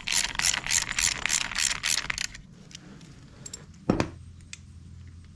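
Ratcheting hand tool clicking fast and evenly, about five clicks a second, for a couple of seconds as a fastener on the trimmer handle is worked. Then it stops, and a single sharp knock follows a little later.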